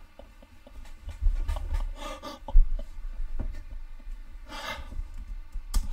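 A person's faint breathy huffs and gasps, with a few low thumps of body movement and a sharp click near the end.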